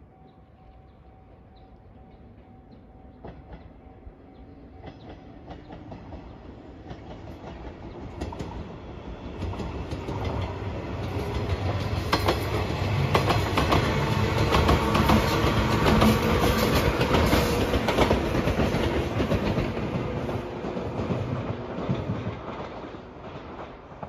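JR 115-series electric local train passing on the track, its wheels rumbling and clicking over the rail joints. It grows from faint to loud, is loudest a little past the middle, then fades away.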